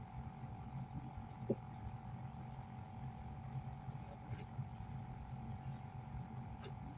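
Steady low background hum with a thin steady tone above it, and three faint, short clicks spread through it.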